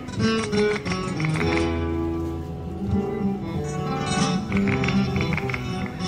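Background music: Latin, flamenco-style guitar music with quick plucked notes over held tones.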